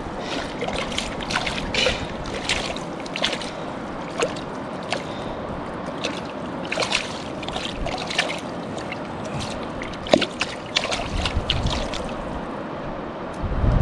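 Steady rush of flowing river water, with irregular small splashes and trickles close by.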